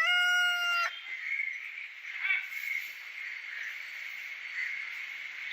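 The end of a rooster's crow: one long held note that cuts off about a second in. A short chicken call follows a little after two seconds, over a steady high-pitched background drone.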